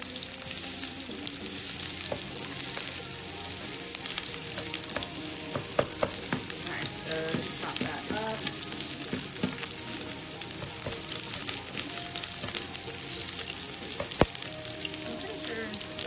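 Crumbled vegan sausage sizzling as it browns in oil in a frying pan, with a spatula scraping and tapping against the pan as it breaks up the crumbles. A sharp tap about fourteen seconds in is the loudest sound.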